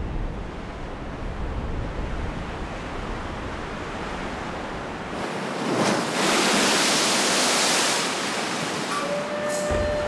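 Low, steady wind rumble over a rocky shore. About five seconds in, a sea wave crashes against a rock, a loud rushing wash of surf and spray that eases off after about three seconds.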